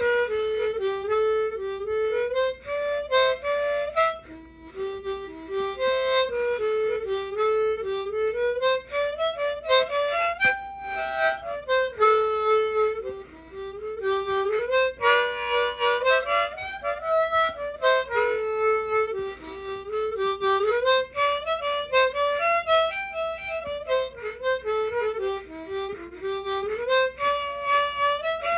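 Old harmonica playing a lively jig melody solo: quick runs of notes in repeating phrases, without pause.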